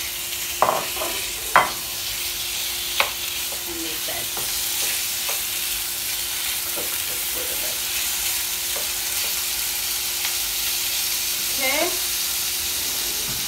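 Raw chicken breast pieces sizzling in hot olive oil in a frying pan, with a wooden spatula knocking and scraping against the pan as they are stirred. The sharpest knocks come in the first three seconds, over a steady sizzle and a faint steady hum.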